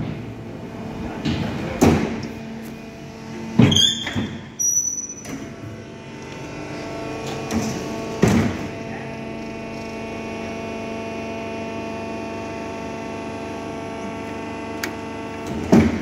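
Fully automatic hydraulic fly ash brick press running its automatic cycle. Its hydraulic power pack keeps up a steady hum, and heavy clanks and thuds from the press and mould moving come every few seconds. There are brief high whistles just after the second clank.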